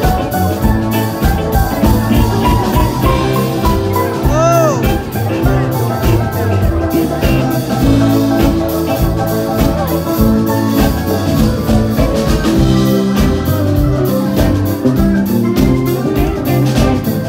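Live band music with banjo and acoustic guitar picking a steady rhythm, without singing. About four and a half seconds in, one note bends up and back down.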